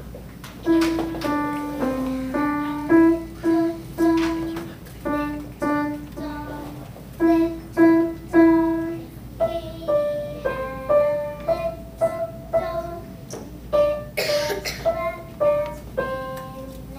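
Grand piano played by a beginner: a simple melody picked out one note at a time, about two notes a second, with short pauses between phrases.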